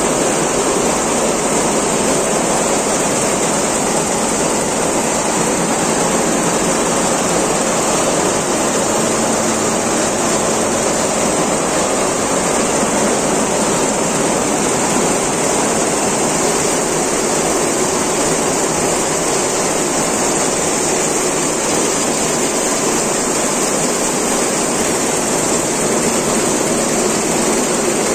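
Richpeace multi-needle computer quilting machine running, its row of needle heads stitching in a loud, steady mechanical noise.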